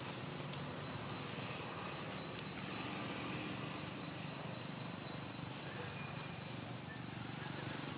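Steady outdoor background noise: a low even rumble with a faint high steady tone above it, and no calls from the monkeys.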